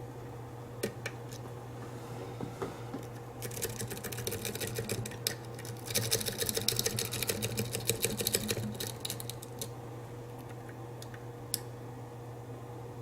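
Lock pick working the spool-pinned pins of a challenge lock: a few single clicks, then several seconds of rapid scraping clicks as the Medusa rake is raked in and out of the keyway, then back to occasional clicks, over a steady low hum.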